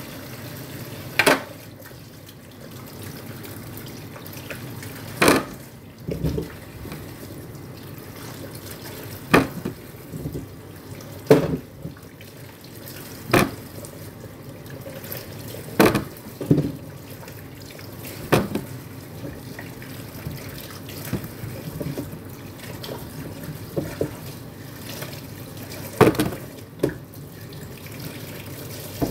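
Kitchen tap running steadily into a sink while beetroots are washed under it, with a sharp knock every few seconds as the washed beetroots are set down on a tray.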